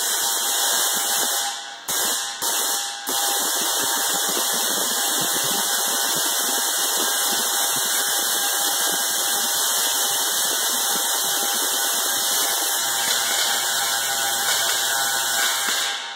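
Large Tesla coil firing arcs into the air from its top toroid: a loud, steady harsh electric buzz that drops out briefly three times about two to three seconds in and stops suddenly near the end.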